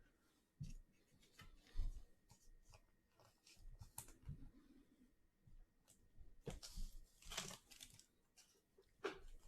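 Faint handling of trading cards and a foil card-pack wrapper: scattered light clicks and taps, then crinkling and tearing of the wrapper from about six and a half to eight seconds in.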